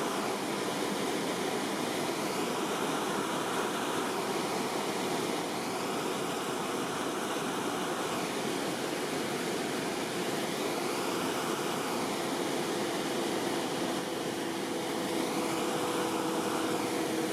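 Weir discharge warning siren wailing in about four slow rising-and-falling cycles, sounded to warn that the sediment-flush gate is about to release water. A steady rush of water from the weir runs underneath.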